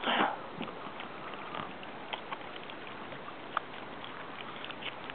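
Water lapping and dripping around a canoe. There is a short splashy rush right at the start, then a low steady wash with scattered small drips and light knocks.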